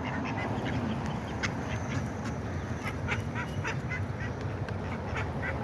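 Several ducks quacking, with many short, scattered calls overlapping one another, over a steady low background rumble.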